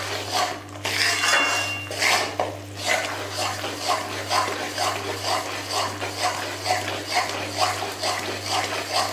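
Metal ladle scraping and stirring a thick flour paste around an aluminium kadhai, in regular strokes about two a second, over a steady low hum.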